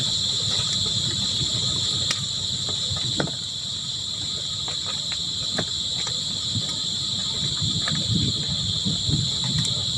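Crickets chirping in a steady, continuous high-pitched chorus, over a low rumble with a few scattered faint clicks.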